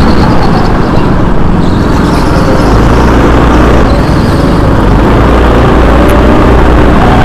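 Go-kart motor running loud and close during a race, over a heavy low rumble. Its thin whine slowly drops in pitch and then climbs again near the end as the kart slows and picks up speed.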